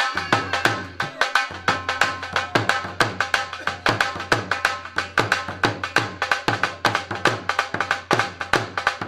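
Drum-led music: a fast, driving drum rhythm with several strikes a second over sustained melodic tones.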